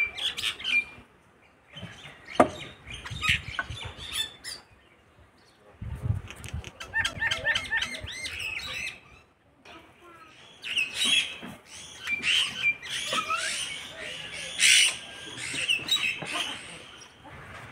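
Birds chirping and calling in clusters, with a sharp knock about two seconds in and a few dull thuds around six seconds.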